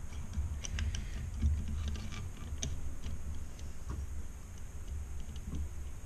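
Light, irregular clicks and ticks of metal parts being handled as a small electric motor is put back together, its end bell and through bolts being fitted. A steady low hum runs underneath.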